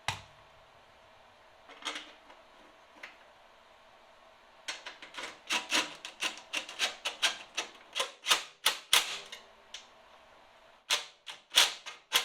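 Socket ratchet clicking in a quick even run, about four clicks a second, as a bolt is run in, pausing briefly before starting again near the end.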